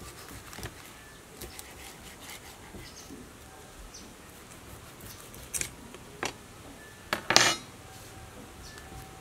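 Knife cutting through crispy fried pork belly on a wooden chopping board: a few separate crunches of the crackling skin and knocks of the blade on the board, the loudest cut about seven seconds in.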